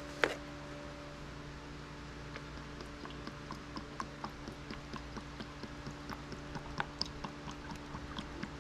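Motor oil glugging as it is poured from a quart bottle into the engine's oil filler, with irregular gurgles a few times a second. There is one sharp click just after the start, and a steady low hum underneath.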